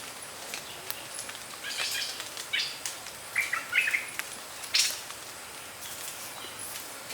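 Outdoor ambience with a few short bird chirps about three and a half seconds in, over a steady faint high hiss and some brief rustles.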